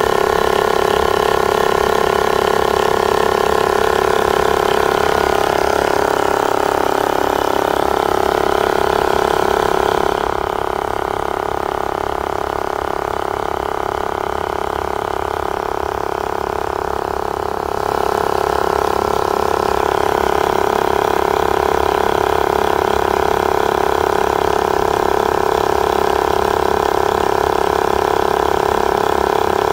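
Wheelor portable tyre inflator's electric compressor running steadily as it pumps up a car tyre: a loud, even buzzing hum of constant pitch. It is fainter for several seconds in the middle.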